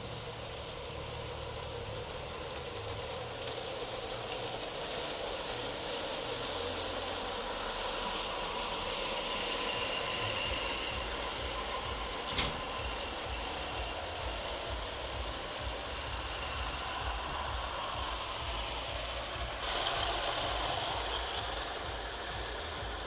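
A long large-scale garden railway train running along the track: an electric motor whine with wheels rumbling on the rails, swelling as the train comes close and passes. One sharp click about halfway through.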